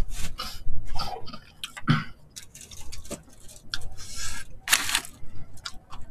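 Eating sounds at the table: chewing and mouth sounds, with scattered light clicks of chopsticks on food containers and a few short hissy bursts.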